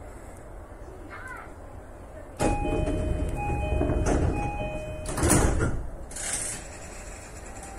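Japanese commuter train's door chime, a two-note high-low chime played three times, followed by the passenger doors sliding shut with a loud rush and thud, and then a short hiss of air.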